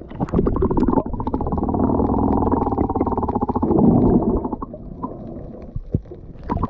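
Muffled underwater rumbling and bubbling, with water rushing over the action camera as it goes below the surface, crackling with quick ticks; it drops much quieter after about four and a half seconds.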